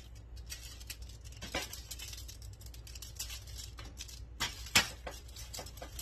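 Aluminium foil crinkling and rustling as a rack of rubbed ribs is handled and lifted off a foil-lined tray, with two sharper crackles, the louder one near the end.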